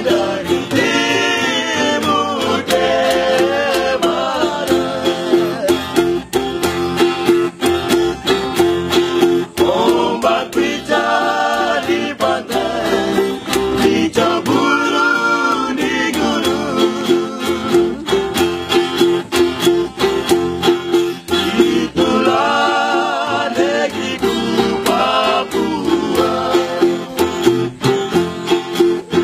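Papuan string-band song: several men singing together to a strummed acoustic guitar and other plucked strings, with a homemade plucked bass keeping a steady beat underneath. The sung phrases come in waves over the continuous strumming.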